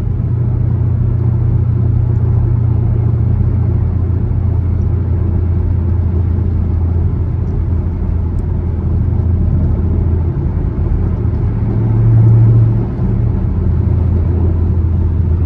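Chevrolet Camaro SS V8 cruising at steady highway speed: a low, even exhaust drone over road noise, swelling briefly about twelve seconds in.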